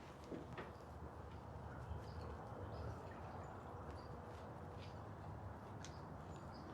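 Faint outdoor ambience: scattered short, high bird chirps over a steady low rumble.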